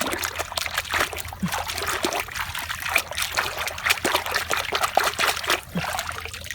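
Water trickling and splashing as a toy truck is washed, with many small irregular splashes and drips.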